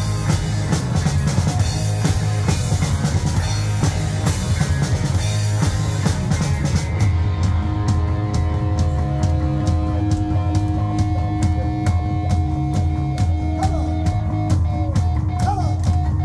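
Live punk rock band playing loud: electric guitars, bass guitar and a drum kit. About halfway through the playing thins out, leaving steady drum beats under held guitar notes.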